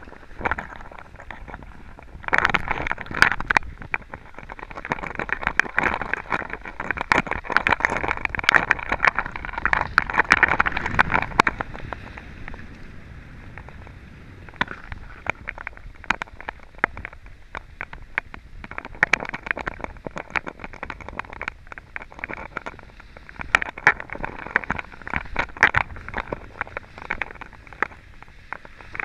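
Skis sliding and scraping over groomed snow on a downhill run, heard as a steady hiss that is louder for the first dozen seconds and then eases, with scattered clicks and knocks throughout.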